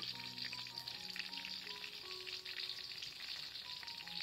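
Jackfruit pieces deep-frying in a wok of hot oil: a steady crackling sizzle. A soft melody of held notes plays over it.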